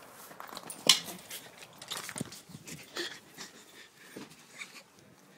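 A sharp knock about a second in, then several softer knocks and scuffling.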